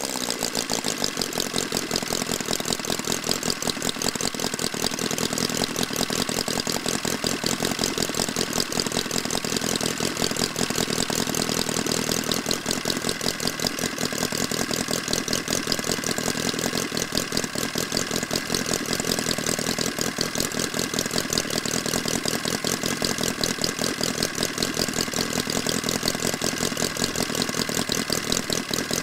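A 25cc horizontally opposed four-stroke model engine, L C Mason's Mastiff design, running steadily with a fast, even firing beat.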